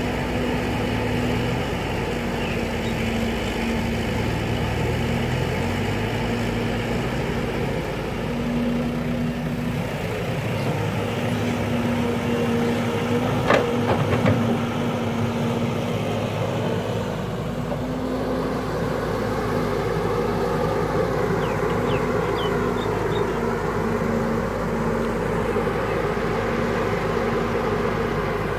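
Caterpillar E120B hydraulic excavator's diesel engine running steadily. About halfway through, a bucketload of soil drops into a steel dump-truck bed with a few sharp knocks.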